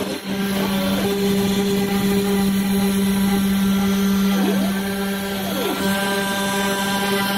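Small CNC mill running at an increased feedrate: the spindle gives a steady high hum as the end mill cuts. About halfway through, two brief whines glide down and back up as the machine's axis motors change speed.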